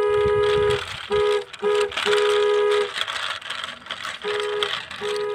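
A two-note vehicle horn honking in a pattern of toots: one long, two short, another long, then after a pause of over a second two more. A steady hiss runs underneath.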